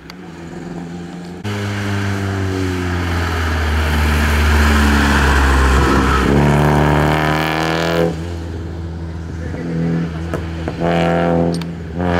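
Rally cars' engines running hard on a twisty stage, one car after another. The revs climb, drop sharply about six seconds in as the car slows for a bend, then rise again under full throttle. Shorter bursts of revving follow near the end.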